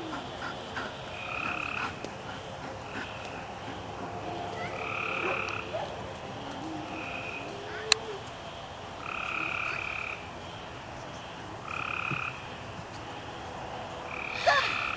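Frogs calling repeatedly, each call a buzzy note lasting half a second to a second, coming every second or two. A single sharp crack sounds about eight seconds in.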